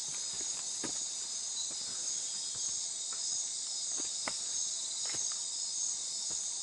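Steady, high-pitched chorus of night insects in rainforest, such as crickets and katydids, with a few soft clicks scattered through it.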